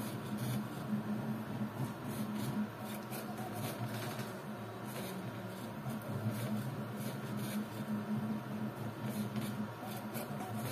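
Voron 3D printer running a print: its stepper motors hum in several low tones that shift as the toolhead moves, with short ticks scattered through.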